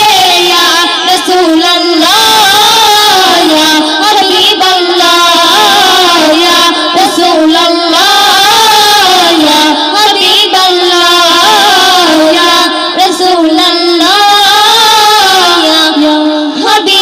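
Women singing a Bengali Islamic gazal through stage microphones: a loud, continuous melodic vocal line with wavering, ornamented notes.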